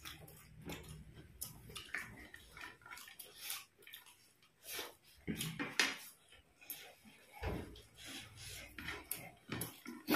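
Two people eating puffed rice (muri) with their hands: irregular crunching and crackling as mouthfuls are chewed and fingers scoop and mix the dry puffed rice on plates.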